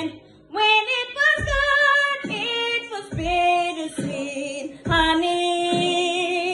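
A woman singing solo, holding notes with vibrato in short phrases with brief breaks between them.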